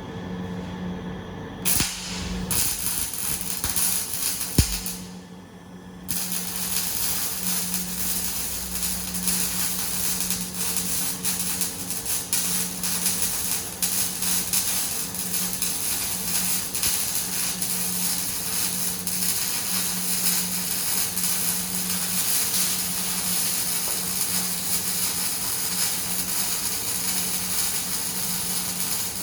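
Semi-automatic (MIG/CO2) arc welding: a steady crackling, sizzling arc over a low hum. The arc runs briefly, stops for about a second around five seconds in, then restarts and crackles on without a break.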